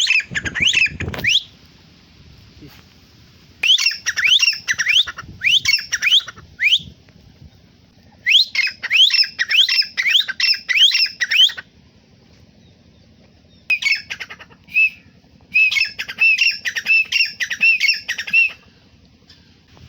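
Francolin (teetar) calling: several runs of harsh, shrill notes that sweep upward, about three a second, with short pauses between the runs.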